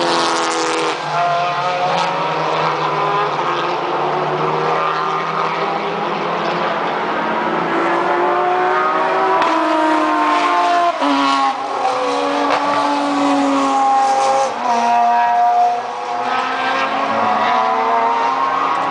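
Several touring race cars' engines accelerating through a corner and passing one after another, their overlapping notes rising and falling in pitch as they rev up and shift through the gears.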